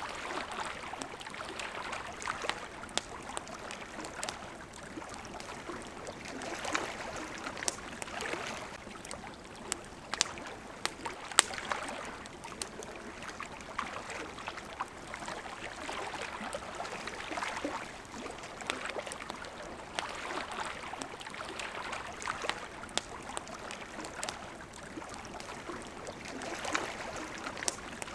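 Water lapping at the shore in small waves that swell and fade every few seconds, with the sharp crackles and pops of a wood campfire scattered through it, one pop louder than the rest about eleven seconds in.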